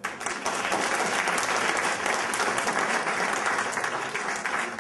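Audience applauding. The applause breaks out suddenly, holds steady, then begins to die away near the end.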